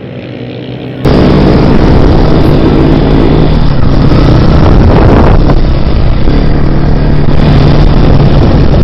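Dirt bike engine running under way, heard close from a helmet-mounted camera, loud and mixed with heavy rushing wind noise on the microphone. It cuts in suddenly about a second in, after a quieter, more distant engine sound.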